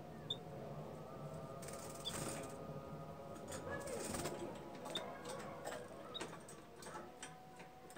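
A pair of budgerigars chattering softly: short high chirps and scattered clicks, a few every couple of seconds.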